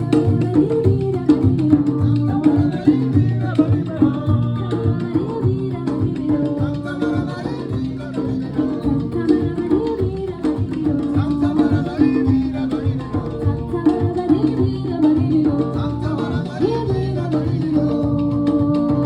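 Live band music: drums and percussion keep a steady rhythm under a gliding melodic line, played through a sound check.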